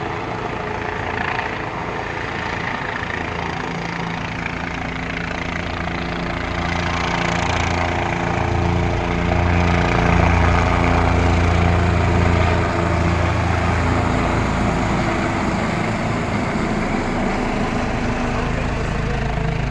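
Helicopter flying overhead with a steady low rotor and engine sound, growing louder toward the middle and easing off near the end.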